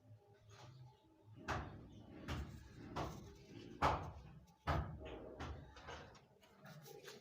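A series of irregular knocks and clunks, about six in four seconds, like hard objects being set down or struck.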